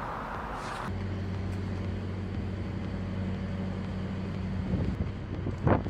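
An engine running steadily with a low, even hum, after a short rush of noise that cuts off abruptly about a second in. A few sharp knocks come near the end.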